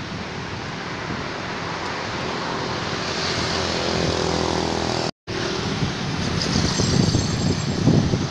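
Wind rushing over the microphone of a camera on a moving bicycle, mixed with road traffic noise. The sound drops out for an instant about five seconds in. After that, heavier low gusts buffet the microphone.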